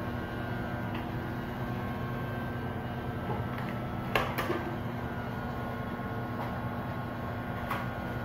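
Electric hair clippers buzzing steadily while cutting hair, with a few sharp clicks a little past halfway and near the end.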